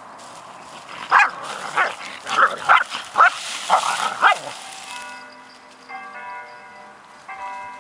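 Dogs, among them an Icelandic Sheepdog, barking during a rough play tussle: about eight sharp barks in quick succession. From about five seconds in, background music with chiming, bell-like notes takes over.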